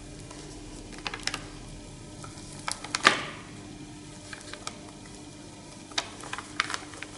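A few light clicks and taps in small clusters, with one sharper knock about three seconds in, over a steady low hum.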